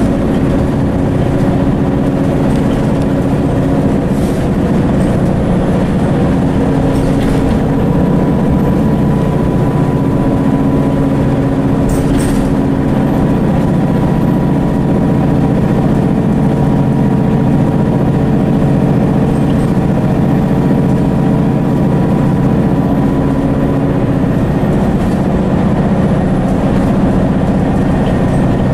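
Cabin interior of a Mercedes-Benz O530 Citaro bus underway: its Daimler OM906hLA six-cylinder diesel runs steadily under road and tyre noise, with no marked change in engine speed.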